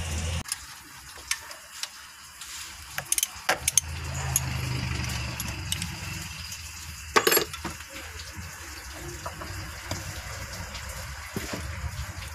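Metal hand tools clinking as sockets and a wrench are handled: a few sharp clicks and one louder clatter about seven seconds in, over a low steady hum.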